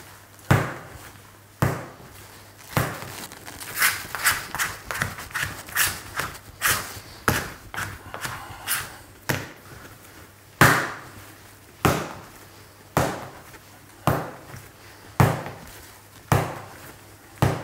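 Soft, sticky bread dough slapped down hard onto a wooden work table and folded over by hand, a sharp slap about once a second with smaller sticky smacks in between as the dough pulls away from the hands and table. The dough is developing strength, getting stronger with every slap and less sticky.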